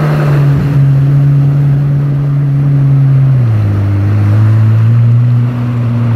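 Kawasaki jet ski's engine running under way at a steady pitch, stepping down to a lower steady pitch about three and a half seconds in as the throttle eases.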